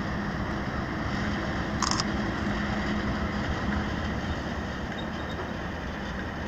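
KiwiRail DX-class diesel-electric locomotives hauling a coal train past at steady speed, their engines giving a steady low hum over the rumble of the train. A brief high squeak comes about two seconds in.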